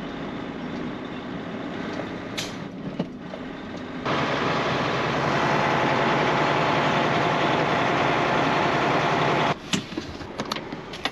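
A vehicle engine running steadily. It gets louder about four seconds in and drops away abruptly near the end, followed by a few clicks.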